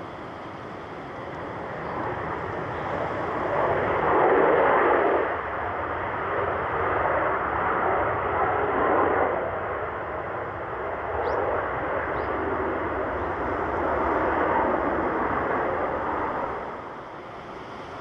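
Skymark Boeing 737-800's jet engines as the airliner passes on its landing run: a wide jet noise that builds about two seconds in, is loudest a few seconds later, and stays loud until it falls away near the end.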